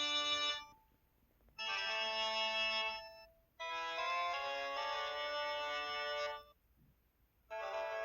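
Ringtone melody from a Samsung SCH-X600 mobile phone: a synthesized, organ-like tune played in short phrases, with brief pauses between them. A phrase ends near the start, and new ones begin at about one and a half, three and a half and seven and a half seconds in.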